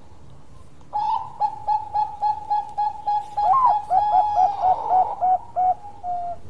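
Zebra dove (perkutut) singing its staccato cooing song: a rapid run of short, clipped notes at about four a second, starting about a second in and closing with one longer, slightly falling note near the end.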